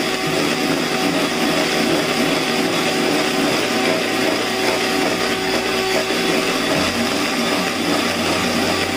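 Electric hand mixer running steadily, its beaters whisking eggs and sugar in a plastic bowl to a foamy, fluffy batter.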